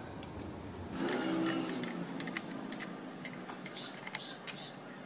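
Scattered light metallic clicks and taps as a metal motor end cover is fitted by hand onto the pump motor body.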